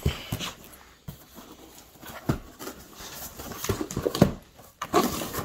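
A dog nosing and pawing at a cardboard box, giving irregular knocks and scuffs, the loudest about four seconds in.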